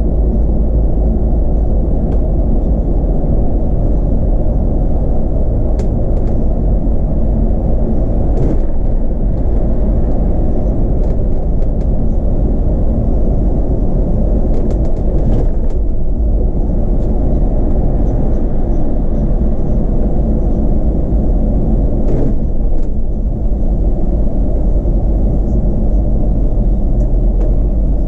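Solaris Urbino 18 articulated city bus running on the road: a steady low rumble of engine and road noise, with a few faint clicks and rattles.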